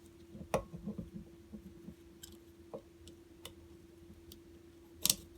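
Small clicks and handling noises of a Leatherman Charge multi-tool as a blade and its pivot screw are worked into place, with a sharp click about five seconds in. A faint steady hum runs underneath.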